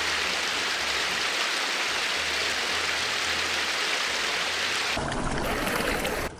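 River water rushing steadily, heard as a close, even hiss. The sound changes abruptly about five seconds in and drops sharply just before the end.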